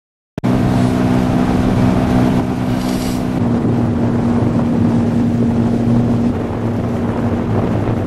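Motorboat engine running at a steady speed under way, with wind buffeting the microphone; it cuts in suddenly just after the start.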